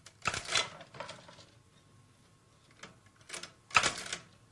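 Chinese typewriter at work: irregular clusters of mechanical clacks and clunks as metal characters are lifted from the tray by the magnet and stamped onto the paper. The loudest clatter comes near the end.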